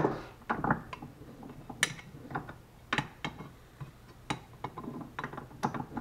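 Scattered metal clicks and knocks as a steel Firebird hood latch is clamped into a small bench vise and pliers are handled and set down. A sharp knock at the start is the loudest, then lighter clicks about once a second.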